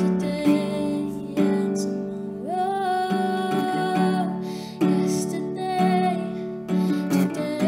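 A woman singing a slow song while strumming an acoustic guitar, chords struck at intervals of about a second, with one long held note about two and a half seconds in.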